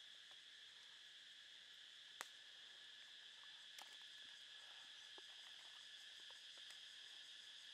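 Faint, steady chirring of insects, with a few small clicks and taps over it, the sharpest about two seconds in.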